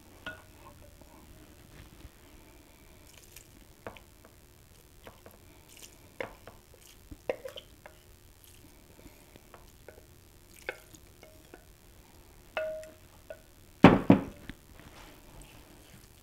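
Wooden spatula scraping diced celery and onion in broth out of a glass measuring cup into a plastic mixing bowl of crumbled cornbread, with scattered clinks, taps and dripping. A quick cluster of sharp knocks near the end is the loudest sound, as the dressing is stirred.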